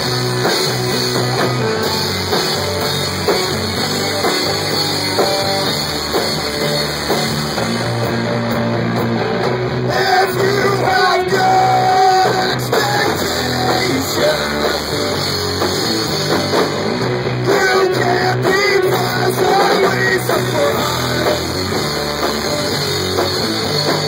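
Rock band playing live: electric guitar and drum kit, with a singer into a microphone.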